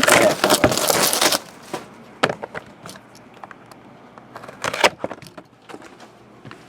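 Trading-card box packaging being torn open, with a loud crackling tear for the first second and a half, then a few sharp clicks and light rustling as the box and packs are handled.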